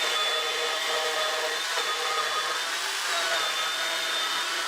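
Bosch AdvancedCut NanoBlade saw, a jigsaw-style saw driving a small chain on a rigid bar, running steadily at full speed while cutting through the full thickness of a wooden board, with a high motor whine.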